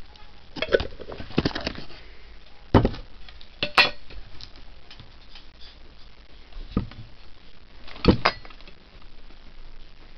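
Scattered sharp clicks and knocks, about half a dozen, from eggs, eggshell and dishes being handled on the table. The loudest comes just after eight seconds in.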